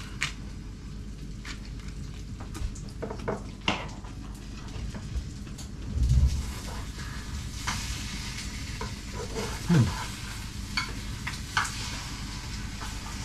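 Food sizzling in a frying pan: a steady hiss, with scattered clicks and a louder low thump about halfway through.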